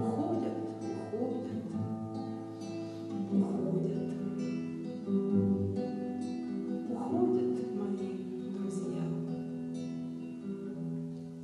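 Nylon-string classical guitar played solo, a passage of picked notes and chords with notes left ringing, softening toward the end.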